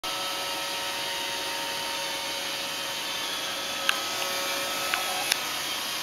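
Roomba robot vacuum running on carpet, a steady whir of motor and brushes with a faint whine. Three sharp clicks come in the second half.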